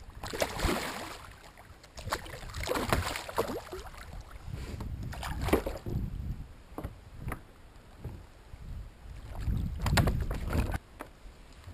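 Water splashing in several bursts as a hooked redfish thrashes at the surface beside a kayak while it is being landed, the last burst the loudest.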